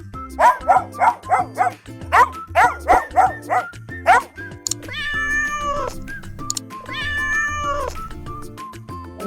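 Cat meowing over cheerful background music: a quick run of short mews, then two longer drawn-out meows.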